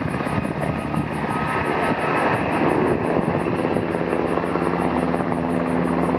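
Sikorsky EH-60A Black Hawk helicopter flying past: its rotor and twin turbine engines run with a loud, steady noise. A steady hum comes through more clearly in the second half.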